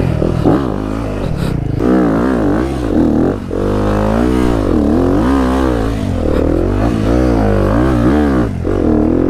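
Yamaha WR250F's single-cylinder four-stroke engine being ridden along a rough dirt trail, the revs rising and falling over and over as the throttle is opened and closed about once a second.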